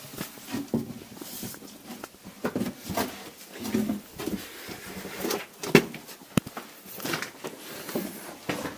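Irregular scuffs, knocks and rustling of people clambering through a narrow cave passage, with a sharp click a little before six seconds in.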